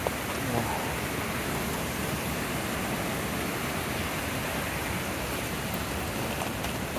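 Rushing water of a snowmelt-fed mountain brook and falls: a steady, even hiss that holds at one level throughout.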